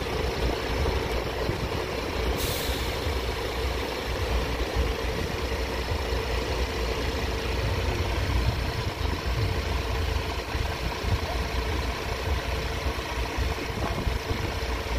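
Road vehicles idling with a low rumble and a steady hum, and a short hiss from a heavy vehicle's air brakes about two and a half seconds in.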